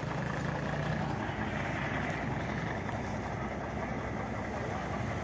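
Truck engine idling steadily with a low, even rumble.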